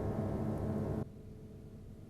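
Strings of a bare upright piano, its case removed, ringing on with many tones at once, then damped abruptly about a second in, leaving only a faint low residue.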